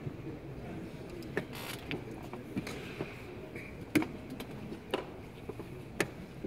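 Irregular sharp clicks and taps of wooden chess pieces being set down and chess clock buttons being pressed in fast blitz play, the sharpest about four seconds in, over a low murmur of a busy playing hall.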